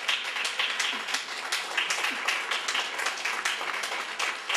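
Audience applauding: many people clapping at once in a dense, steady stream of hand claps.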